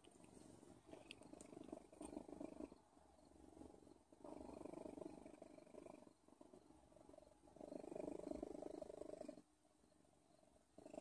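Domestic cat purring close up, swelling and fading with each breath about every three seconds.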